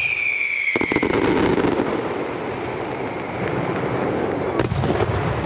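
Fireworks display: a long, high whistle from a whistling firework that slowly falls in pitch, over sharp bangs and dense crackling from the bursting shells. A cluster of bangs comes about a second in and another near the end.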